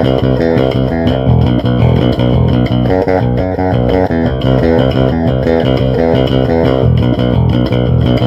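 Custom electric bass guitar played through a bass cabinet on its humbucker pickup alone, the balance pot turned fully to the humbucker: a continuous line of plucked bass notes at a steady level.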